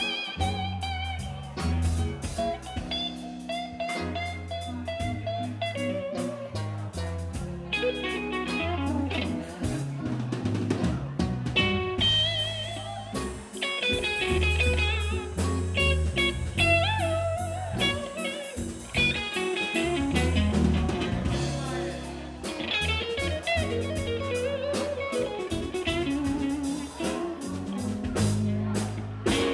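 Live electric blues band playing an instrumental passage: a lead electric guitar plays bent notes with vibrato over bass guitar and a drum kit.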